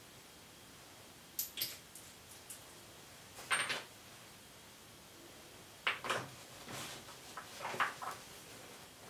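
Small toiletry bottles and jars clicking and knocking as they are handled and set down on a bathroom sink ledge: a few light, separate clinks, the loudest about three and a half seconds in, and a cluster of them in the last few seconds.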